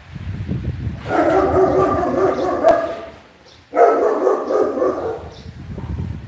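A dog whining in long, drawn-out cries: two of about two seconds each, with a third starting near the end, over a low rumble.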